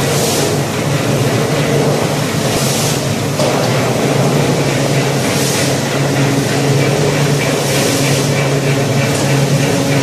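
Fertilizer blending plant machinery running with a steady hum, a short hiss swelling roughly every two and a half to three seconds.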